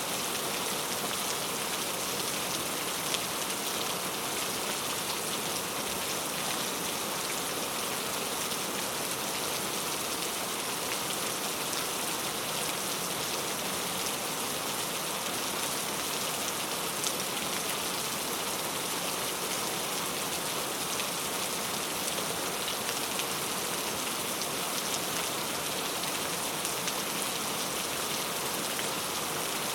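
Steady rain falling, an even hiss with scattered sharper raindrop ticks and one or two louder single drops.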